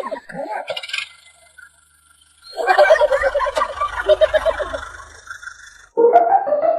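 A high-pitched cartoon-style voice in quick, rapid syllables, in two stretches with a short pause between.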